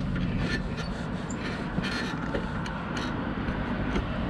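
Bicycle rolling along the street: a steady rumble of tyres and wind, with scattered rattling clicks.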